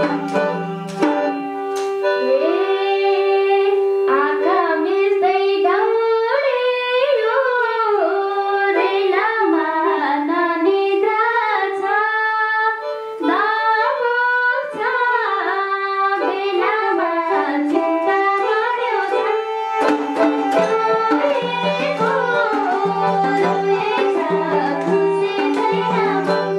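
Live Nepali dohori folk song: a woman singing, accompanied by a bowed sarangi, keyboard and hand drum. The singing carries the middle stretch, with a steady held keyboard tone and a repeated low figure at the start and again near the end.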